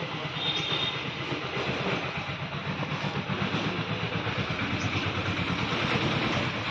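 An engine running steadily, a fast, even throb under a hiss.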